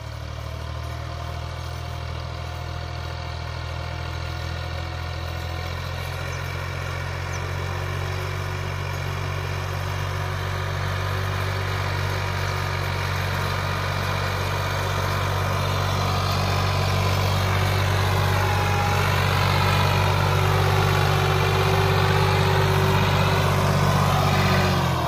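Massey Ferguson 260's turbo diesel engine running steadily under load as the tractor pulls a 16-disc harrow through the soil. It grows gradually louder as the tractor comes closer.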